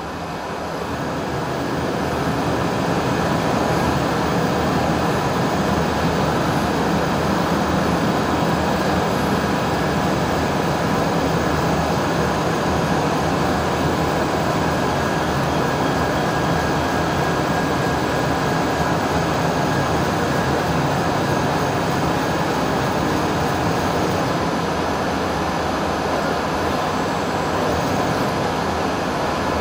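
Syil X7 CNC mill's table traversing slowly along the X axis under jog: a steady mechanical running of the axis drive that builds over the first couple of seconds and then holds even.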